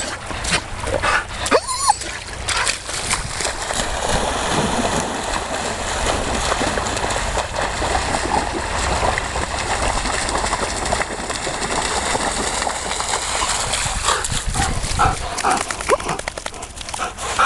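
Dogs barking in short bursts during the first couple of seconds and again near the end. In between is a steady rushing noise.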